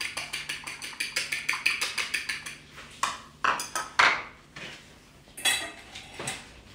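Eggs being beaten with a fork in a ceramic bowl: quick, even clicks of metal against the bowl, about six a second, stopping about two and a half seconds in. A few separate clinks of utensils against bowls follow.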